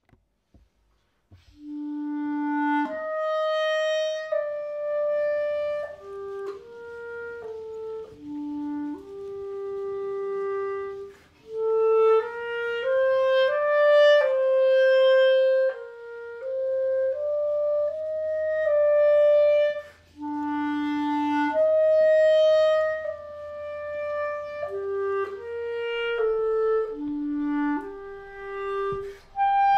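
Background music: a slow solo melody of long held notes in a single line, starting about a second and a half in.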